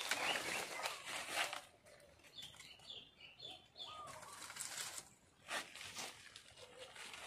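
Leaves and thin vine stems rustling and swishing as yanang vines are pulled down from saplings and their leaves stripped by hand, in bursts near the start and again a little past halfway. A few short bird chirps come in between.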